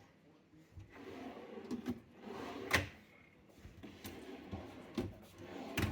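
Wooden cabinet drawers on heavy-duty full-extension soft-close ball-bearing slides being pulled open and pushed shut, with several knocks as they stop, the loudest about three seconds in.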